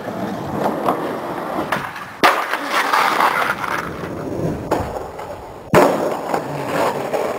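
Skateboard wheels rolling and rattling on a flatbed trailer deck and concrete, with sharp clacks of the board hitting down. The sound breaks off and restarts abruptly a few times.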